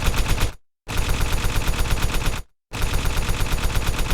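A rapid, evenly spaced string of sharp pops, about eight a second, like machine-gun fire. It stops dead twice for a fraction of a second, once about half a second in and again near two and a half seconds.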